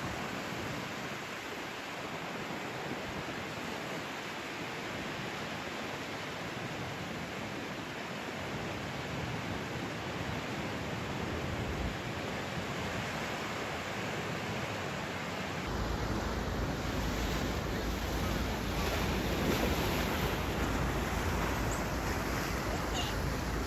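Ocean surf washing steadily onto a sandy beach, the waves running somewhat high from a typhoon. From about two thirds of the way in, a low rumble of wind on the microphone joins it.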